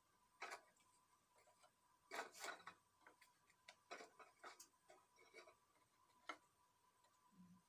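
Faint, scattered light clicks and taps as round dry biscuits are picked up from a plate and laid one by one into a glass dish.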